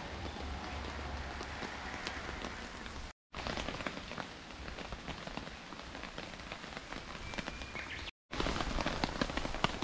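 Steady rain falling on the surrounding foliage and grass, with many separate drops ticking close by. The sound cuts out briefly twice, about three and eight seconds in.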